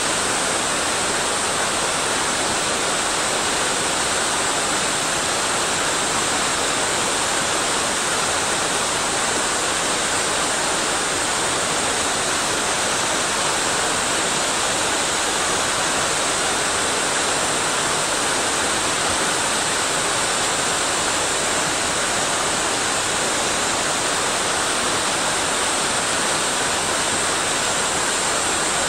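Mountain stream water rushing over rocks and falls, a steady, unchanging rush of white noise.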